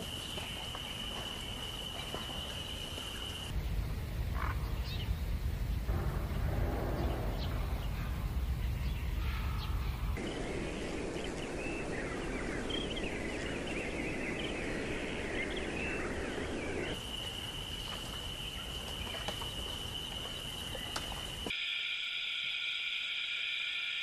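Spliced wild-bird ambience. It opens on a steady high tone; after about three seconds a low rumble comes in with scattered chirps. Around ten seconds in, many birds chirp together. The steady high tone returns near the end, followed by several steady high tones together.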